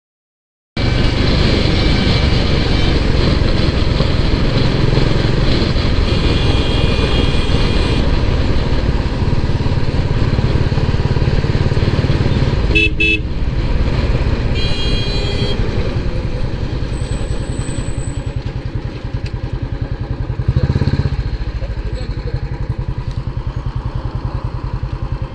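Royal Enfield Classic 350's single-cylinder engine thumping steadily while riding, starting suddenly about a second in. Vehicle horns sound over it several times, briefly about halfway through and again a couple of seconds later.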